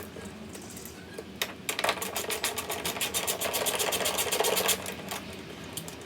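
Hand socket ratchet clicking rapidly as bolts are loosened by hand, in a fast run of clicks lasting about three seconds, starting about a second and a half in.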